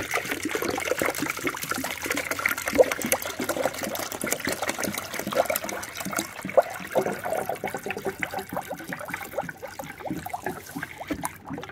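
Distilled water and coolant pouring from plastic jugs into a part-filled plastic spill-free radiator funnel: a steady splash of liquid falling into liquid, with bubbling, growing a little softer near the end.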